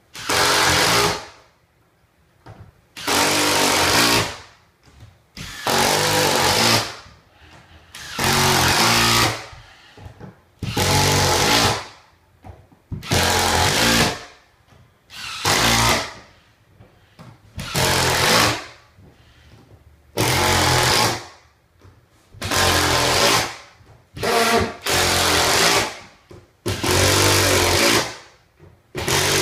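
Cordless driver sinking backer-board screws through cement board into the wood subfloor, one after another: about thirteen short runs of a second or so each, one every two seconds, with pauses between.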